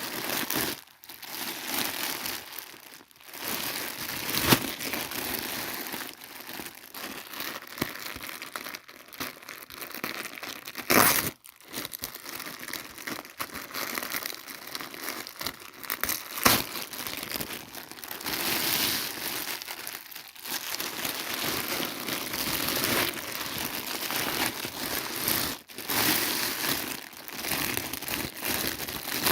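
Toy packaging being unboxed by hand: continuous crinkling and rustling, with a few sharp clicks or snaps along the way.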